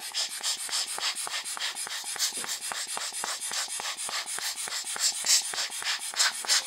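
Rubber hand bulb air blower squeezed rapidly and repeatedly, each squeeze a short hissing puff of air, about four or five a second, blowing dust off a lens's aperture blades.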